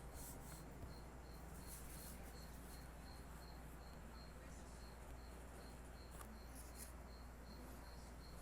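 Faint cricket chirping steadily, about three short high chirps a second, over a quiet low hum, with a couple of faint clicks near the end.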